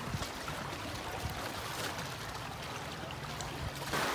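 Water trickling and lapping around a small wooden fishing boat, a steady wash of noise with faint ticks and drips; it gets louder just before the end.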